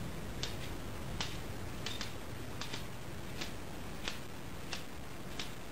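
Shotgun magazine tube extension being screwed by hand onto the Akkar Altay Competition's magazine tube threads, metal on metal, with a light click about every 0.7 s as it turns, about eight clicks in all.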